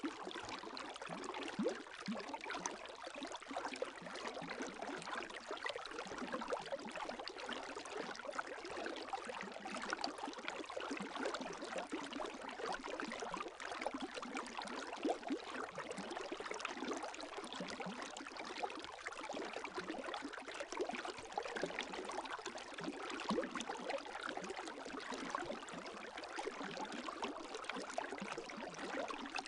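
Gentle lake waves lapping, a steady wash of small splashes and trickles with no large breaking swells.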